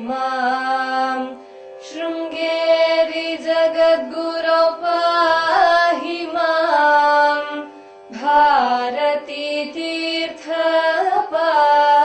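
Devotional Hindu chant sung as a slow bhajan over a steady drone, the melody gliding between notes and pausing briefly between phrases.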